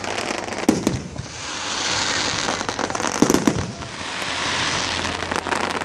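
Fireworks going off: two loud bangs, one about a second in and another about two and a half seconds later, over a steady crackling hiss.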